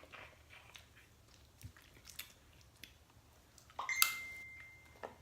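Quiet chewing and small crunches of someone eating seafood, with a sharp knock about four seconds in followed by a single high ringing tone that lasts about a second.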